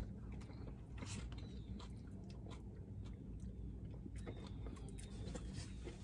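Faint eating sounds of ice cream: scattered small clicks and scrapes of plastic spoons in paper cups and mouth sounds of eating, over the low hum of a car interior.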